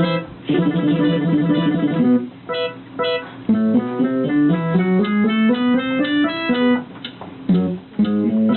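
Guitar music: a quickly repeated strummed chord pattern, then picked notes over a bass line that climbs step by step.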